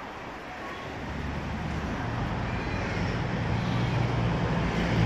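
A car approaching on the road alongside: a low engine hum with tyre noise that grows steadily louder, loudest near the end.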